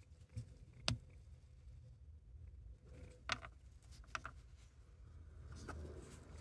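Neopars naphthalene mothballs cracking as gloved fingers squeeze and break them: a sharp snap about a second in, another a little past three seconds, and a couple of smaller cracks just after. Faint crumbling and rubbing near the end.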